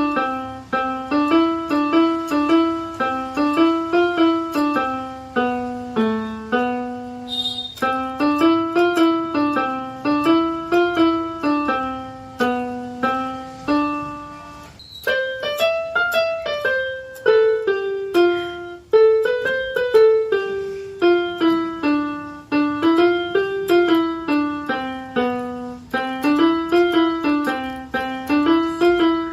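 Electronic keyboard with a piano sound playing a simple single-note melody at a steady pace, about two notes a second, in repeating phrases. The notes pause briefly about seven seconds in and again near fourteen seconds. The tune then jumps higher and steps back down.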